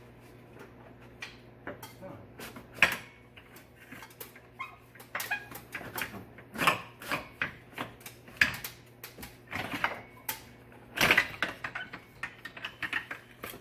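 Irregular metal clunks, clicks and knocks of a bolted engine-bay part being rotated and worked free by hand, catching against the air-conditioning compressor, with a few sharper knocks spread through.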